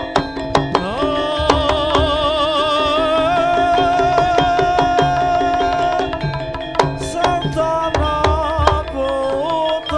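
Javanese jaranan music played live: gamelan with sharp hand-drum strokes and, from about a second in, a melody line held with a wavering vibrato, which breaks into shorter phrases near the end.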